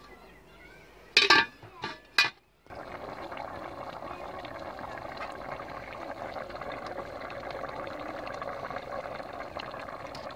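A few sharp metal clinks of a ladle against an aluminium cooking pot, then, about two and a half seconds in, steady bubbling of potato and eggplant curry boiling hard in the pot.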